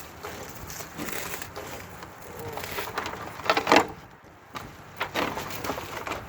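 Irregular crunching and crackling of heavy cable rolls and their plastic wrapping being handled and unrolled, with a louder crunch about three and a half seconds in.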